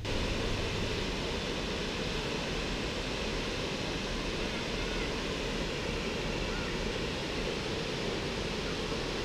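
Waterfall: a steady, even rush of falling water that cuts in suddenly at the start.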